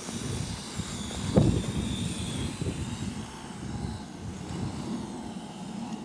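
Wind buffeting the microphone in irregular gusts, one stronger gust about a second and a half in, over the faint high whine of a distant Parrot AR.Drone quadcopter's electric motors and propellers.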